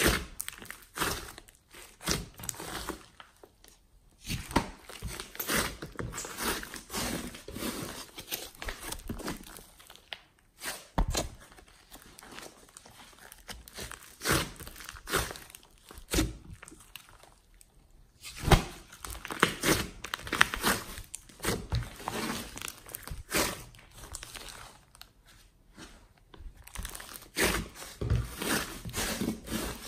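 Hands squeezing, pressing and folding a large mass of glossy slime mixed with clay, giving dense, irregular crackles and squishes, with a few short pauses between squeezes.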